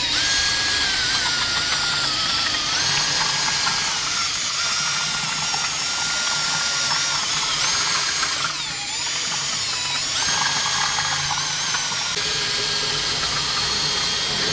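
Cordless drill whining as it spins a homemade steel-rod blender in a pot of haleem, the motor's pitch stepping up and down with the trigger and dipping briefly about nine seconds in. It runs freely, with hardly any load on it.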